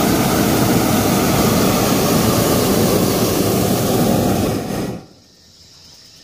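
Hot air balloon's twin propane burner firing in one long, loud blast of rushing flame noise that cuts off sharply about five seconds in.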